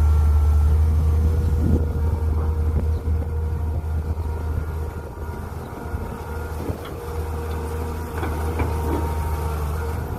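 Mini excavator's engine running steadily under load with a steady hydraulic whine, and a few light knocks from the digging.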